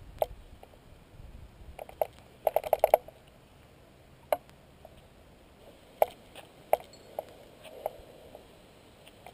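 Spinning reel and rod handling while a large pike is played on light 6 lb line: scattered light clicks, with a quick run of clicks about two and a half seconds in.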